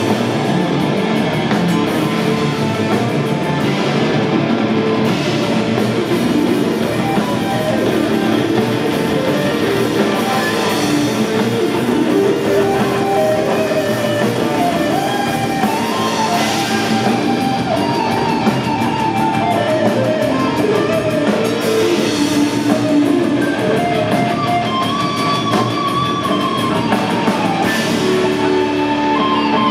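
Heavy metal band playing live: electric guitars, bass guitar and drum kit, loud and dense.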